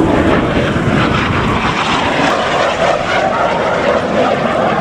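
Aermacchi MB-339 jet trainer's Rolls-Royce Viper turbojet running as the aircraft flies past, a loud, steady jet noise.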